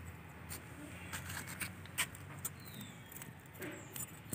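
Small puti fish being scaled and cut against a boti blade: a string of faint, irregular clicks and scrapes.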